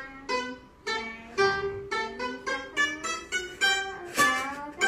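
A Chinese plucked lute played as a melody of single plucked notes, about two or three a second, each ringing briefly and fading. The loudest note comes near the end.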